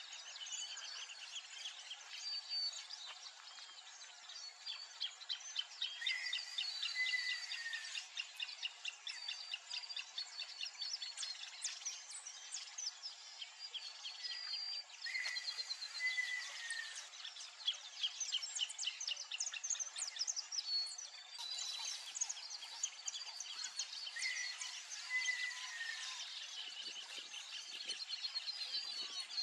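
Many wild birds calling and chirping at once in a dense, continuous chorus of short high chirps and trills. A short falling call recurs about every nine seconds, three times in all.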